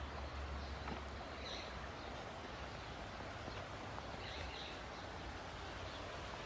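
Outdoor nature ambience: a steady hiss with a low hum beneath, and faint bird chirps about one and a half seconds in and again around four and a half seconds.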